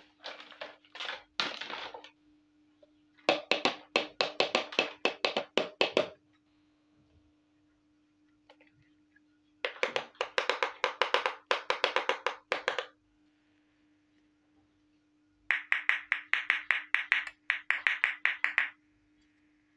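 Small plastic toy cookware pieces clicking and tapping against each other in quick series of sharp clicks, about five or six a second, in four separate bursts, over a faint steady hum.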